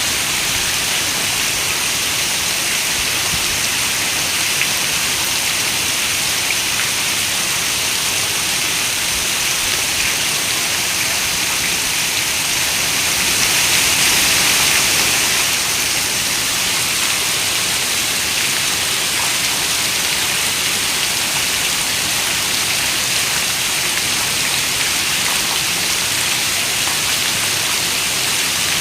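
Steady rain falling, an even hiss that swells a little about halfway through.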